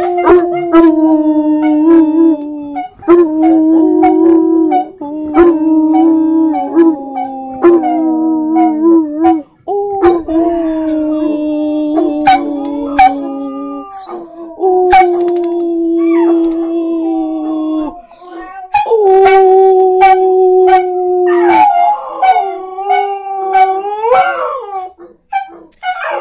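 Hound dogs howling along in a series of long, drawn-out howls, each held a few seconds and sliding slowly in pitch, with short breaks between them.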